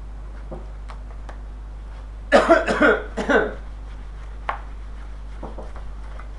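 A man coughing a few times in quick succession about two seconds in, over a low steady electrical hum.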